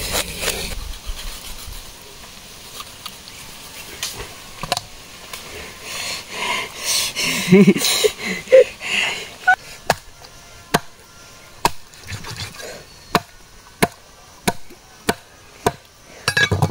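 Large knife working a whole fish on a wooden chopping block: scraping off scales at first, then, over the last six seconds or so, a steady run of sharp chops about one and a half a second as the fish is cut into pieces.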